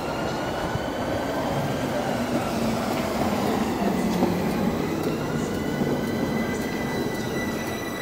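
London Underground Bakerloo line 1972 Stock train running into the platform, with the rumble of wheels on rail and motor whines that glide up and down in pitch. Later a steady high whine holds.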